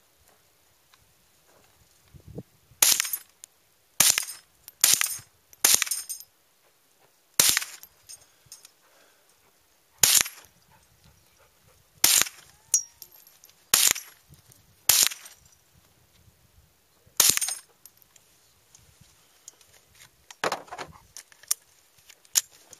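Marlin 70 PSS Papoose semi-automatic .22 rifle firing about ten single shots, unevenly spaced a second to two and a half seconds apart. A duller, longer noise follows near the end.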